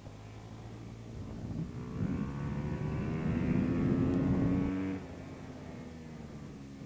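Dirt bike engine under acceleration, its pitch climbing slowly as it pulls out of a corner onto a straight, then dropping sharply about five seconds in as the throttle is closed.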